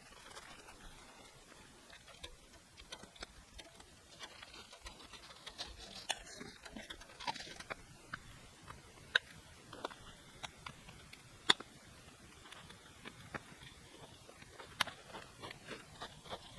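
Wood campfire crackling: irregular sharp pops and clicks over a faint hiss, a few pops louder than the rest.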